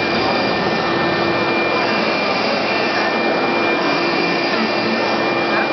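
A 4060 UV flatbed printer running as it prints: a steady whooshing machine noise with a constant high whine and a lower steady hum.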